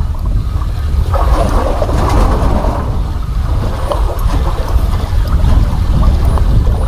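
Wind rumbling hard on the microphone aboard a small boat at sea, with a rougher rushing noise over it from about a second in.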